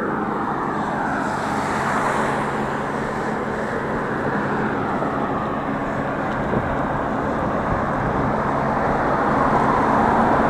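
Steady rush of road noise while cycling along a main road: wind over an action camera's microphone mixed with passing motor traffic, growing louder near the end.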